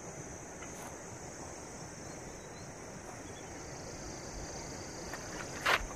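Insects chirring steadily in one high continuous tone. Near the end come a few sharp rustles of a nylon bag being handled.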